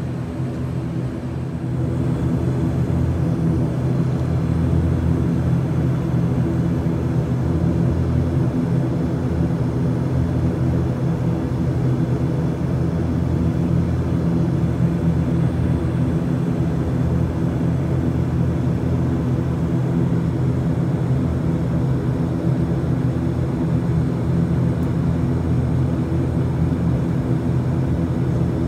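Cabin drone of an ATR 72-600's twin Pratt & Whitney PW127-series turboprops running on the ground, a steady hum with several low propeller tones. It gets louder about two seconds in.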